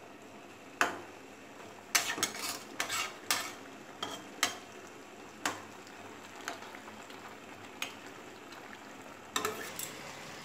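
Metal spatula scraping and knocking against a metal frying pan as a vegetable curry is stirred, about a dozen irregular clicks and scrapes with a cluster between two and three and a half seconds in. Under it runs a low steady sizzle of the simmering curry.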